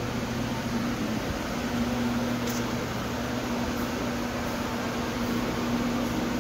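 Steady mechanical hum with a low drone and an even rush of noise, from a machine running without change.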